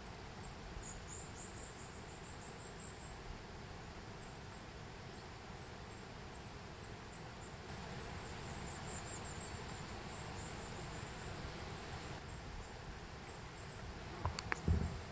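Insects chirping in high-pitched, rapidly pulsing trills, in two spells, over a faint steady outdoor hiss. A short knock comes near the end.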